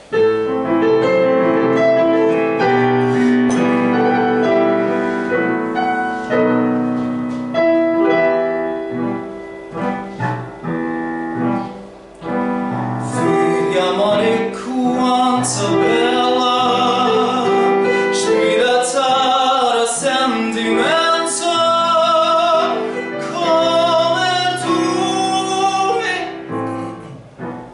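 Music: piano playing with a classically trained voice singing in an operatic style, the voice wavering with strong vibrato and most prominent from about halfway through.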